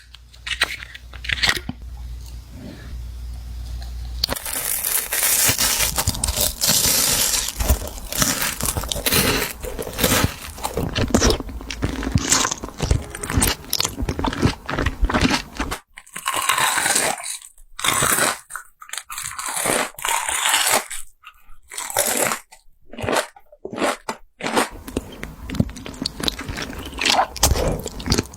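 Close-up crunching of someone biting and chewing crisp food, a dense run of crunches that later breaks into separate bites with short silent gaps between them.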